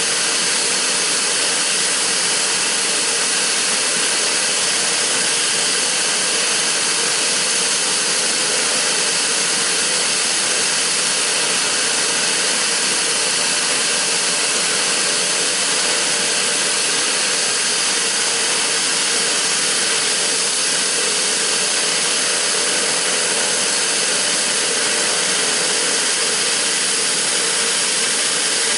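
Pilatus PC-12's Pratt & Whitney PT6A turboprop running steadily, a loud, even turbine hiss and whine that neither rises nor falls.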